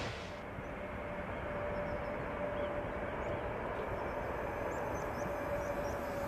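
An engine runs steadily: an even rumble with a steady droning tone, and a few faint high chirps scattered through it.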